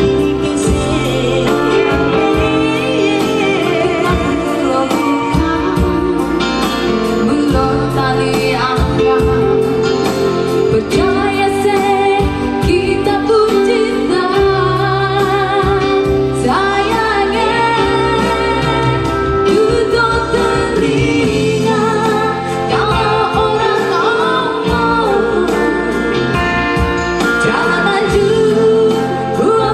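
A man and a woman singing a duet through microphones over electronic keyboard accompaniment; the man leads at first, the woman takes a verse in the middle, and both sing together near the end.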